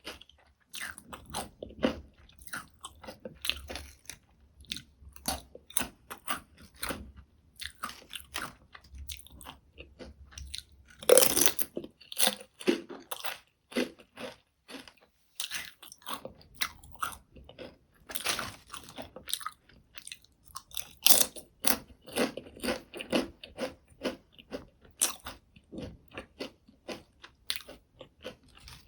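Potato chips being bitten and chewed close to the microphone: a steady run of crisp crunches, with a few louder bites at intervals.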